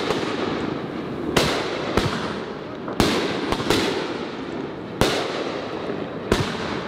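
Aerial fireworks shells bursting overhead with about eight sharp bangs at uneven intervals, over a continuous crackle.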